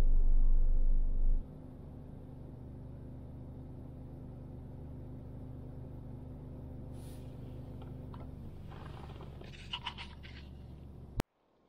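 Car engine and road noise at low speed: a steady low drone that opens with about a second and a half of loud low rumble. Near the end there are a few faint short noises. Then the sound cuts off suddenly with a click.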